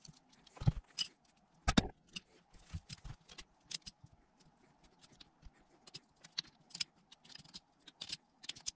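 Metal hose-end fitting being pushed and twisted by hand into the end of an oil hose, giving scattered clinks, small scrapes and rubbing, with two louder knocks in the first two seconds.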